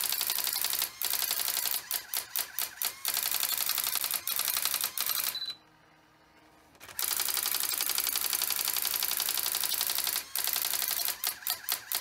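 Brother electronic daisy-wheel typewriter printing ASCII art at normal speed: a rapid, continuous rattle of character strikes with a few short breaks. It stops for about a second and a half midway, then resumes.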